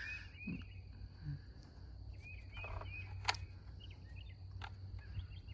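Quiet outdoor ambience: small birds give short, repeated chirps over a steady low rumble, with a sharp click a little over three seconds in.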